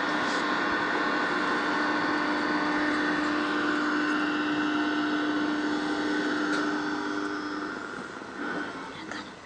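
A steady, noisy drone with a low held tone and a higher ringing band, fading down about eight seconds in.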